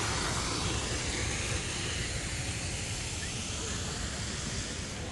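Fountain jets spraying and splashing into a basin, a steady hiss that eases off about two seconds in, over a low rumble.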